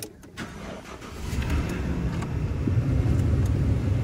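Pickup truck engine started in freezing cold to warm up: a few sharp clicks at the start, then about a second in the engine comes up and settles into a steady low running sound, heard from inside the cab.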